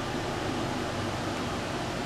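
Steady background hum and hiss that holds level throughout, with no siren sounding.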